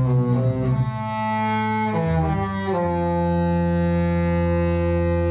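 Disney Magic cruise ship's horn playing a slow tune in long, loud held notes, the note changing a few times.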